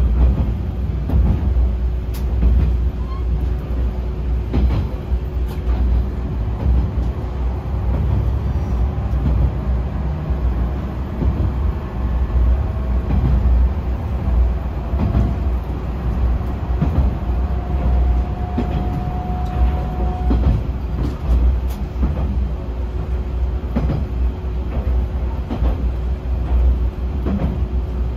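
YR-880 diesel railcar heard from inside its driver's cab while running: a steady low rumble of engine and wheels, with wheels clicking over rail joints now and then. A faint whine slowly rises in pitch through the middle.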